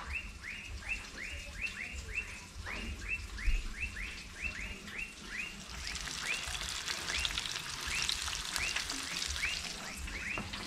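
Floured bangamary fish going into hot oil, with frying sizzle and crackle rising about halfway through. Throughout, a rapid series of short, high, falling chirps, three or four a second.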